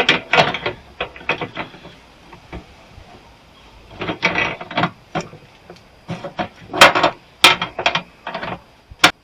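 Hand tools clicking and knocking against the sheet-metal and internal parts of an old welder being dismantled, in irregular sharp strikes, with the loudest around seven seconds in.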